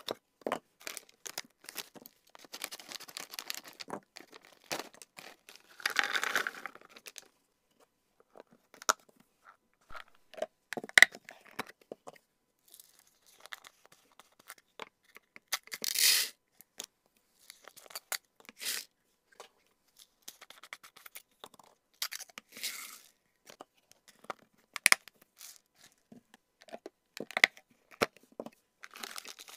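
Close-up handling of hamster-snack packaging and clear plastic storage boxes: sharp clicks of the boxes' snap-lock lids being unlatched and closed, crinkling of snack packets, and several short pours of dried snacks and seeds into the boxes.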